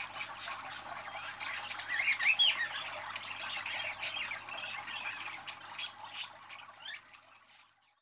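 Budgerigar warbling and chattering: a stream of quick rising and falling chirps, loudest a couple of seconds in, fading out near the end.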